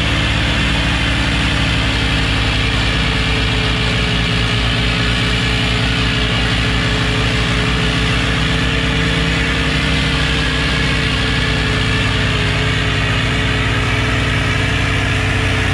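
Powertrac Euro 60 tractor's diesel engine running steadily under load, pulling a harrow through loose soil.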